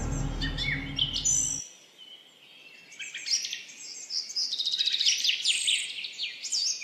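Small birds chirping: many short, quick chirps. Background music ends abruptly about one and a half seconds in.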